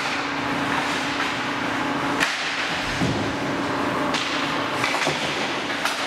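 Ice hockey play: a steady hiss of skates on ice, broken by several sharp knocks of sticks and puck, the loudest about two seconds in.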